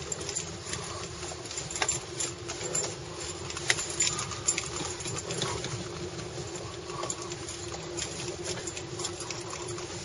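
Irregular light clicks and rattles over a steady low hum inside a car cabin.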